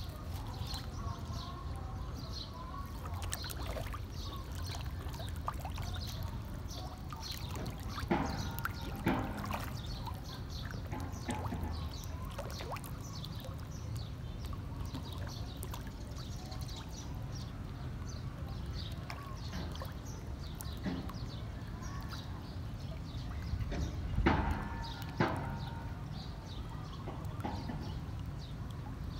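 A crowd of feeding fish churning at the water surface: continuous slapping, sloshing and small splashes over a steady low rumble. There are two pairs of louder splashes, about a third of the way in and again near the end.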